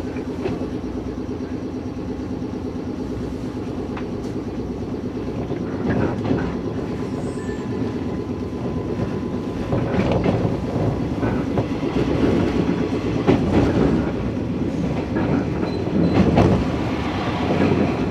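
The 113 series electric train's air compressor running with a rapid steady chugging while the train stands at the station. In the second half the sound grows louder as the train pulls away, with wheels clattering over the rail joints.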